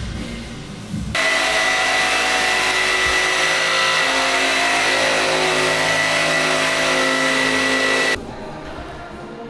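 An electric power tool's motor runs steadily with a high whine for about seven seconds. It switches on abruptly about a second in and cuts off abruptly near the end.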